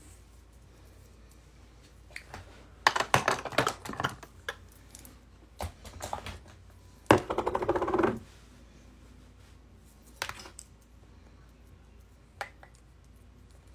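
Clicks and clatter of makeup tools being handled and put down: a cluster of clicks about three seconds in, a dense rattle around seven to eight seconds, then a couple of single clicks.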